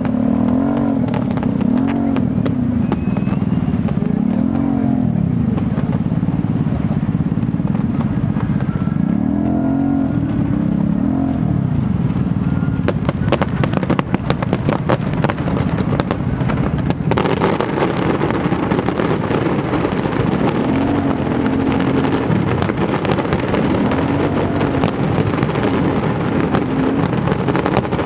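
Engines revving up and down again and again over a steady rumble. A dense run of fireworks bangs and crackles comes from about 13 to 17 seconds in.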